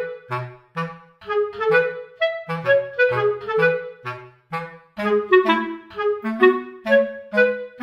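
Background music: a bouncy tune of short, detached notes over a bass line.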